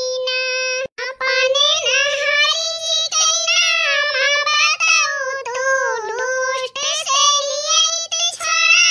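A high-pitched, childlike voice singing alone, holding and bending long notes in a wavering melody, with a short break about a second in.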